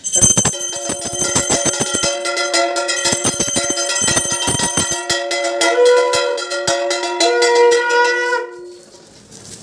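Conch shell (shankha) blown in one long, steady note of about eight seconds, which fades out near the end. A rapid clatter of sharp strikes runs through the first half.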